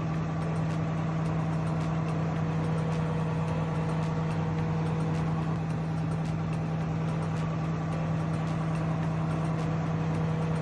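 LEGO DUPLO cargo train locomotive's built-in speaker playing its refuelling sound effect while the train stands at the gas pump: a steady engine-idling hum with a fine regular ticking running through it.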